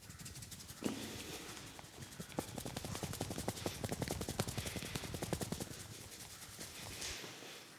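Hands striking a person's head in rapid succession during a head massage, a fast run of sharp pats. It starts about a second in, is densest through the middle and thins out near the end.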